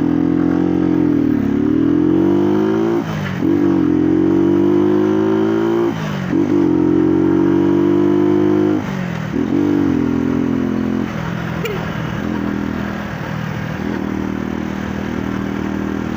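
Motorcycle engine accelerating up through the gears. Its pitch climbs in each gear and drops at each upshift, about three seconds in, about six seconds in and near nine seconds, then settles to a steady cruise from about eleven seconds.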